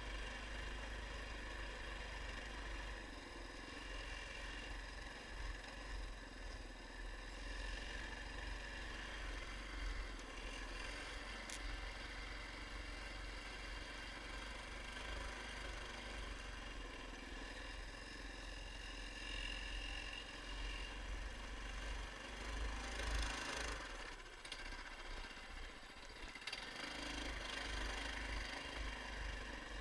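Small motor all-terrain vehicle's engine running steadily while riding, with a deep rumble and a brief louder surge of noise about three-quarters of the way through.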